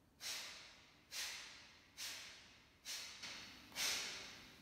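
A man's rapid, forceful breaths out through the nose in pranayama breathing practice: sharp puffs about once a second, five in a row, each starting abruptly and trailing off.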